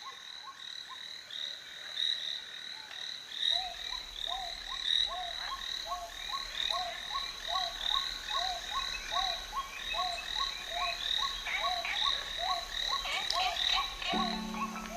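A chorus of frogs calling in an even repeating rhythm, about two calls a second, over a steady high trill. It starts abruptly, and a low musical note comes in near the end.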